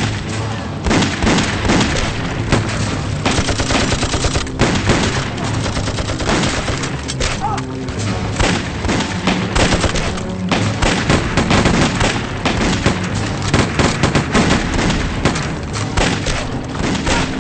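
Dense gunfire from many rifles and pistols, shot after shot in quick succession with no pause.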